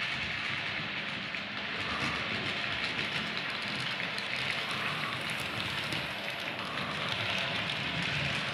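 Piko model of an SU45 diesel locomotive with double-deck coaches running on the layout track: a steady rushing rattle of wheels on rails and motor whirr, growing slightly louder in the second half as the train comes past.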